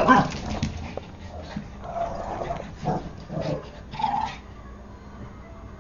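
Puppy vocalizing in about five short bursts of yips and growls, the loudest at the very start.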